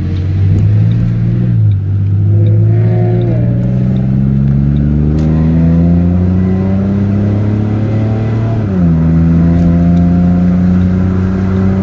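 Car engine heard from inside the cabin while driving, accelerating with its pitch climbing steadily. The pitch drops at gear changes about two seconds in and again near nine seconds.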